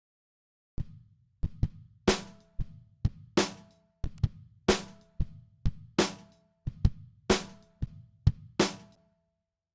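Kick and snare drum track played back without other instruments: a steady groove with a snare hit about every 1.3 seconds and kick hits between them. It starts about a second in and stops shortly before the end.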